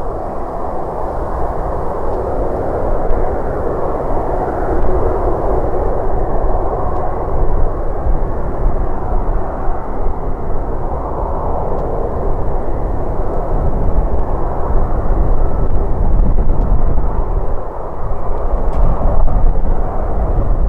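Jet airliner's engines running as a steady, loud rush of noise.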